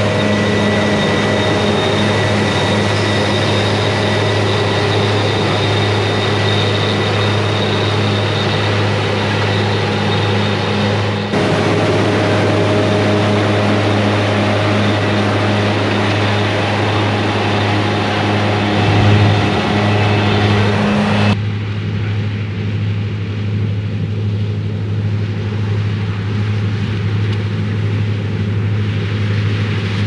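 Diesel engines of a combine and tractor running steadily during corn harvest: a low, even hum with a thin high whine over it. The sound shifts suddenly twice, about a third and about two-thirds of the way through, and is duller after the second shift.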